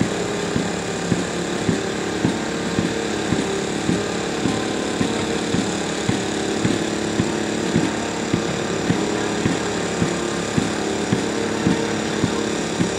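An engine running steadily at one even pitch, with a short knock repeating regularly about twice a second.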